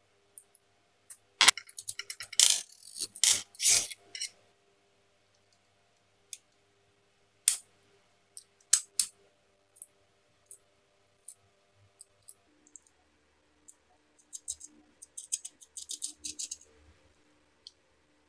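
Small metal wrench and steel bolts and nuts clinking against a 3D-printed plastic bracket as the bolts are tightened and the parts handled: a quick flurry of clicks a second or so in, scattered single clicks, and another flurry of clicks near the end.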